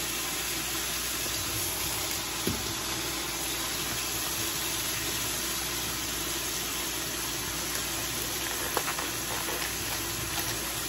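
Frozen sliced steak frying in a hot pan: a steady sizzle, with a sharp click about two and a half seconds in and a few more near the end.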